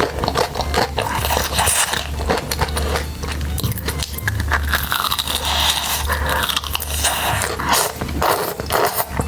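Close-miked eating: irregular crunching, biting and chewing of food.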